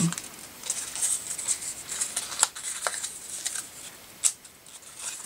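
A strip of paper being folded and pinched between the fingers: soft rustling and crinkling, with a few sharper crackles.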